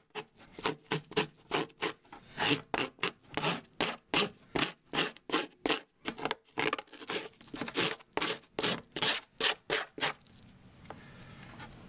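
Small plastic scraper scraping turf algae off an algae scrubber screen in quick repeated strokes, about four a second, stopping about ten seconds in.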